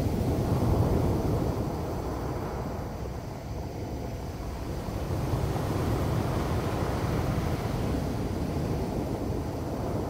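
Sea surf at high tide breaking and washing up a cobble beach: a steady, low rush that swells about a second in, eases off, then builds again about halfway through.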